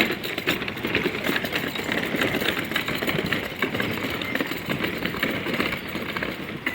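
An engine idling steadily, with many small knocks and clatters over it.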